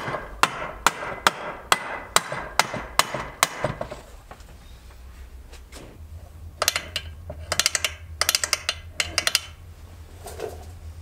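A mallet tapping the halves of a Puch ZA50 moped engine's aluminium crankcase together over a new gasket: about nine sharp taps, a little under half a second apart. After a pause come a few quick runs of lighter clicks and rattles.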